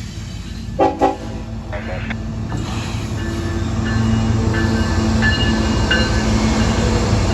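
Approaching freight locomotive sounding its horn: two short loud blasts about a second in, then a longer sounding. A crossing's mechanical bell rings in quick repeated strokes, and the train's low rumble grows louder as it nears.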